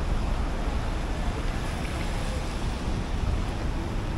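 Steady city street noise: a low rumble of traffic under an even hiss, with no single event standing out.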